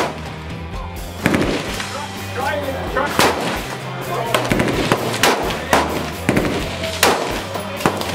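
Gunshots on a shooting range, about seven sharp cracks at uneven intervals, over background music.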